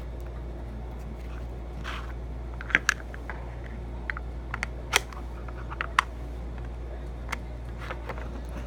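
Scattered light clicks and taps as small plastic slime containers and butter slime are handled on a wooden shelf, over a steady low hum.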